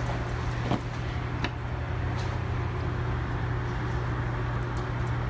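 A steady low hum over an even background noise, with a couple of light clicks about a second in.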